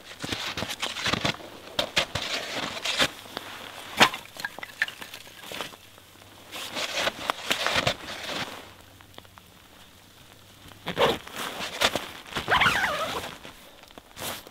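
Snowshoe footsteps crunching in snow and split firewood clattering as it is set down, with one sharp wooden knock about four seconds in. Near the end, rustling as the tent door is handled.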